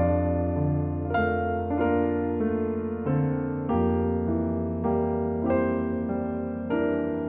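Background music played on piano, with a new chord roughly every half second to second over held bass notes.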